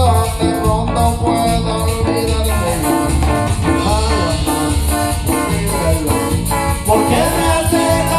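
A live band playing Latin dance music: a steady, pulsing bass beat with a melody over it.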